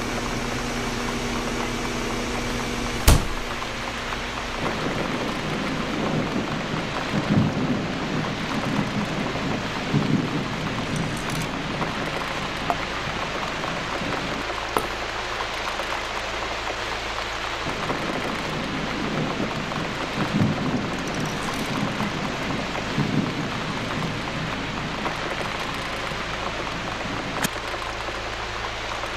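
Steady, rain-like hiss with several low rumbles and one sharp click about three seconds in.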